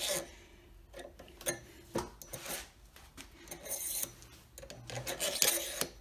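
Metal pen-turning bushings and a cast resin pen blank being slid by hand along a steel pen mandrel: quiet scraping and rubbing with scattered light clicks.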